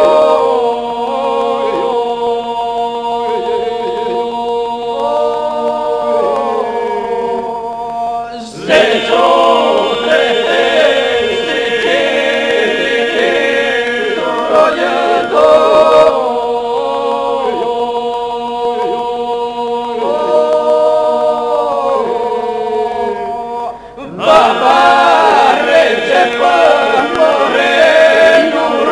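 Slow vocal music: voices singing a chant-like song in Albanian over a steady held drone. Louder new phrases begin about a third of the way in and again near the end.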